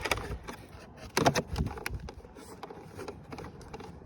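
Plastic car door trim panel knocking and scraping against the door as it is worked back into place, with a louder cluster of knocks about a second in.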